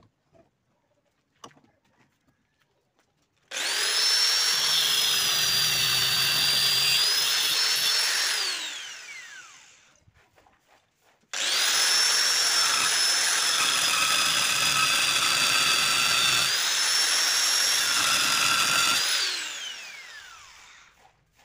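A small high-speed electric motor, like a power tool's, switched on twice: it starts abruptly and runs with a steady high whine and hiss for about five seconds, then about eight seconds, each time spinning down with a falling whine after it is switched off.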